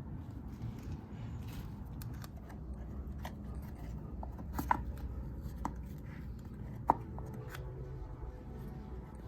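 A few separate sharp metal clicks and taps of hand tools working the clutch cover bolts off an ATV's two-stroke engine, over a steady low hum.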